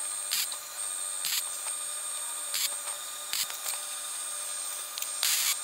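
TIG torch striking short tack welds, joining steel rods to bolt heads: several brief arc hisses, with a longer one near the end, over a faint steady high whine.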